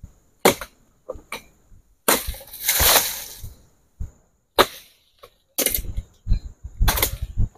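Sharp chopping knocks of a long-poled harvesting sickle striking at an oil palm's crown, about five separate strokes. About two seconds in comes a longer rustling crash lasting over a second.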